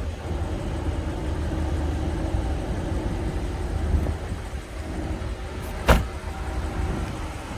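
BMW M850i Gran Coupe's twin-turbo V8 idling with a steady low rumble, broken by a single sharp crack about six seconds in.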